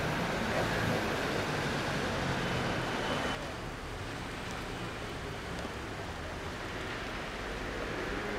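Steady outdoor background noise of a town street, with no distinct event. About three seconds in it drops slightly and turns duller.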